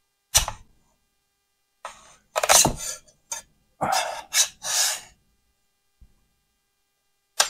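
Metal scraper wedged under a cured resin print on a resin 3D printer's build plate, prying and scraping it loose: a sharp click about half a second in, a few harsh scraping strokes in the middle, and another sharp click near the end.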